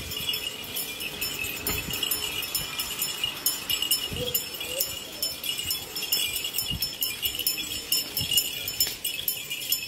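Light jingling from a decorated cow's ornaments as the cow is walked along on a lead, over a steady high whine.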